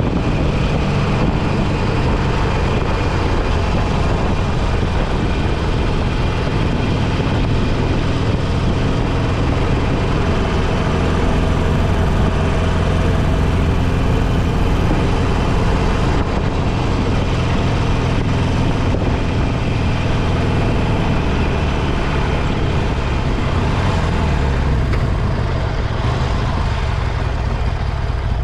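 Motorcycle engine running steadily under way, mixed with steady wind and road rush.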